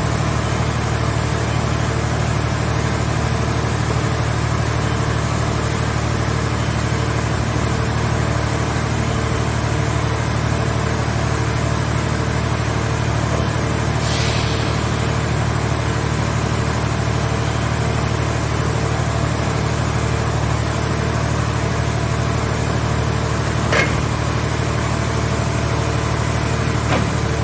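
Car baler's engine and hydraulic power unit running at a steady drone, with a short hiss about halfway through and two sharp clicks near the end.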